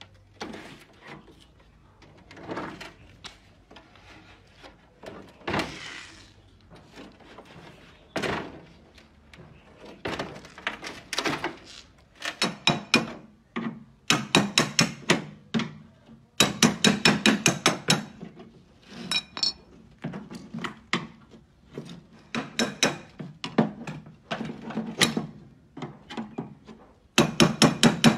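A hand tool tapping and knocking on a car door's bare sheet metal. Scattered knocks and scrapes at first, then from about halfway through, quick bursts of many rapid taps.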